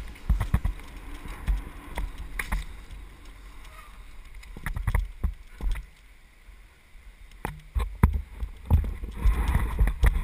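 Mountain bike clattering over a rocky trail, heard from a helmet camera: irregular sharp knocks and rattles from the bike over a low rumble. There is a quieter stretch just past the middle and denser knocking near the end.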